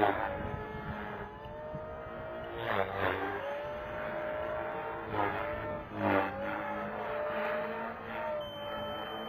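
Electric Align T-Rex 450L RC helicopter flying aerobatics, its motor and rotor whine steady in pitch but dropping sharply and climbing back several times, about 3, 5 and 6 seconds in.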